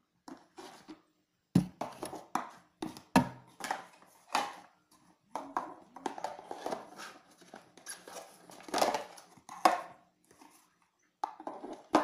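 Handling noises from a cardboard box packed with cosmetics: irregular knocks, taps and short rustles as items and the box are moved about.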